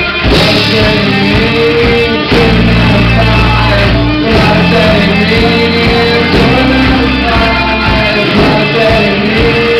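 A live rock band playing loud: electric guitars, bass and drums, with singing and long held notes over a steady bass line.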